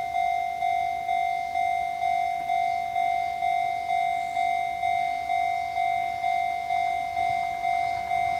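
Electronic warning bell of a Japanese railway level crossing, a recent new-type sounder, dinging steadily about twice a second. Each stroke is a single bell-like tone that fades before the next.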